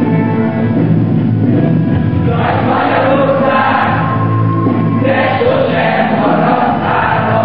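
Choral music: a choir singing over sustained instrumental accompaniment, the voices coming in about two and a half seconds in.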